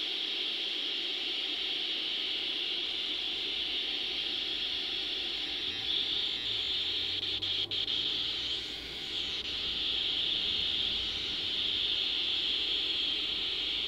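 An analog electronic sound generator plays through small loudspeakers, imitating a Class 40 diesel locomotive's turbocharger: a steady, hissy high whine over a lower drone. Its tone shifts a little as the potentiometers are turned, and a few scratchy crackles about halfway come from poor connections to the potentiometers.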